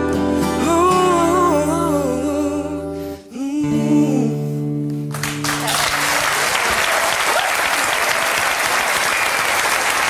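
The final bars of a German-language guitar ballad: a sung note with vibrato over guitar and steady backing chords, a brief break, then a last held chord. About five seconds in, an audience starts applauding and keeps on.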